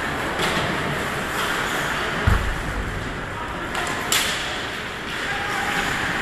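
Ice hockey rink noise during live play: a steady mix of skating and spectators talking, with a deep thump about two seconds in and a sharp clack about four seconds in.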